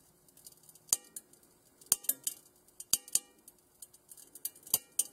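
Cast iron skillet, freshly MIG tack-welded, creaking and cracking as it cools: irregular sharp metallic ticks and pings, one to a few each second. The sound comes from stress in the brittle, high-carbon cast iron as it contracts quickly after being heated by the weld.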